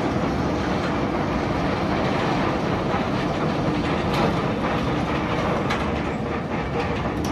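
Roller coaster train running along its steel track: a steady rattling rumble with a few faint clicks in the middle.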